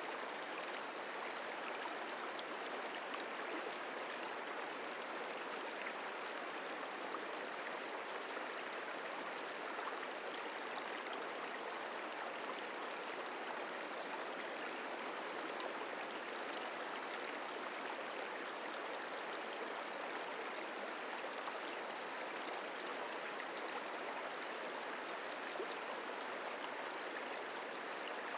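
The Merced River flowing, a steady rushing and gurgling of stream water.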